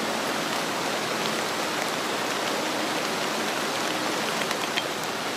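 Heavy rain falling as a steady, even hiss, with a few faint drop ticks here and there.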